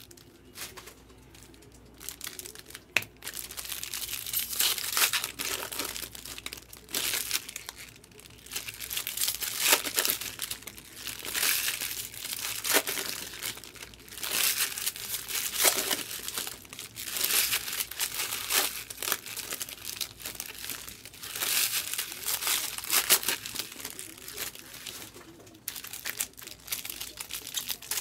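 Plastic wrapping on 2024 Bowman baseball card boxes and packs crinkling and tearing in irregular bursts as it is opened by hand. It is quieter for the first two or three seconds, with a sharp click before the crinkling takes over.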